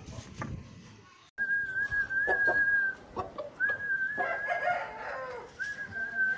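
Aseel rooster crowing, the longer crow ending in a falling tail, with shorter calls, after a brief drop-out about a second in. Three long, level, high whistle-like notes come and go over the calls.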